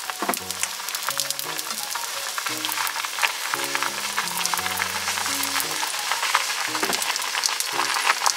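Gyoza frying in oil in a nonstick frying pan: a steady sizzle with many small crackling pops, over soft background music.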